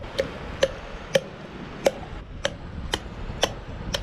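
Mini cleaver chopping through a channel catfish's tough rib bones on a wooden cutting board: eight sharp chops, about two a second.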